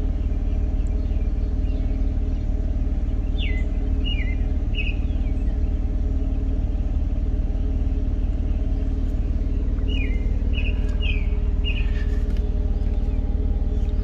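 Jeep Cherokee engine idling steadily, an even low hum. A bird gives a few short falling chirps twice, about three seconds in and again about ten seconds in.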